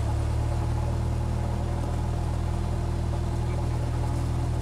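Cessna 172's piston engine and propeller running steadily at low taxi power, heard from inside the cabin.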